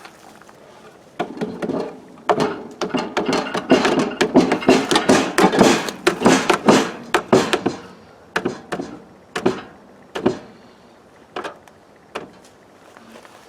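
Wooden knocks and thuds as the hive's boards are handled and struck during assembly. A quick run of blows starts about a second in and is densest in the middle, then thins to a few single knocks near the end.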